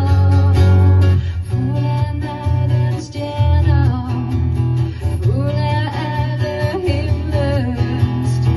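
Live acoustic guitar accompanying a woman singing into a microphone, a song from a stage musical.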